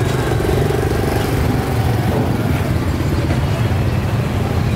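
Motorbike engines running close by in busy street traffic, a steady low hum.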